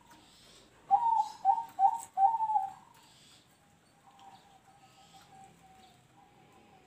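Zebra dove (perkutut) cooing in the 'noklak nekung' song style: about a second in, four loud clipped notes in quick succession, then a fainter, drawn-out wavering coo.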